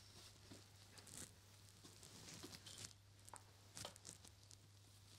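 Near silence: room tone with a low steady hum, faint rustling and a few soft ticks.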